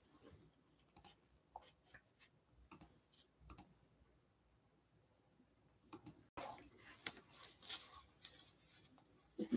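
Scattered light clicks and rustling handling noises, with a quiet stretch in the middle; the rustling grows denser over the last few seconds.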